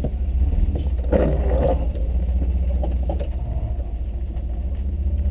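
Chevy S-10 Blazer engine running at low revs with a steady, evenly pulsing low rumble as the truck crawls over a rocky trail, heard from inside the cab.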